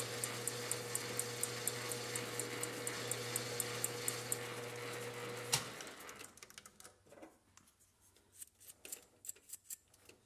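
Metal lathe running steadily as it chamfers the end of a small brass valve body, with a light tick about four times a second. About five and a half seconds in, the motor is switched off with a click. The lathe then winds down, leaving only faint small clicks.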